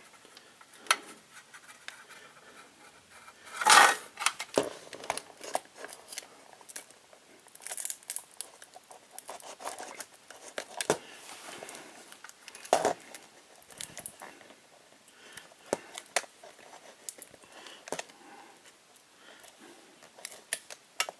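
Small clicks, scrapes and rustles of hands taking apart a plastic flip clock, with a louder click or knock about four seconds in and another just before thirteen seconds.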